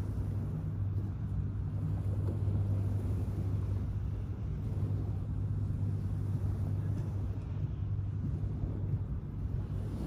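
Steady low motor hum from an unseen engine, over gentle small waves washing on the sand.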